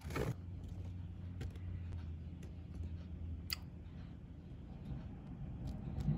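Rain falling, heard faintly from indoors through a window, over a steady low hum, with a few sharp clicks.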